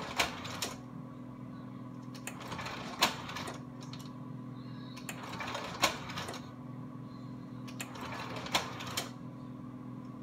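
Bell & Howell Ringmaster slide projector running in reverse: its cooling fan hums steadily while the slide-change mechanism clacks in a short burst of clicks about every three seconds as each slide drops out and the next one drops in.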